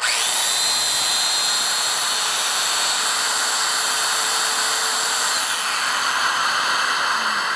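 Festool Domino loose-tenon joiner switched on and running free, no cut: its motor spins up sharply, then holds a steady high whine over a loud hiss while the cutter spins and oscillates side to side.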